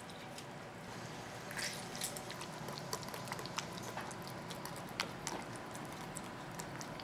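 Wire whisk beating a thick, soft cream cheese and mayonnaise mixture in a ceramic bowl. It makes quiet wet squelching, with light irregular ticks of the wires against the bowl that pick up about a second and a half in.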